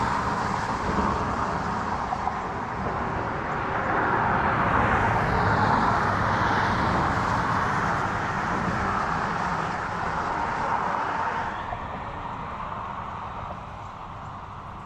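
Road traffic on the highway bridge alongside: a steady rush of tyre noise that swells a few seconds in and fades away near the end.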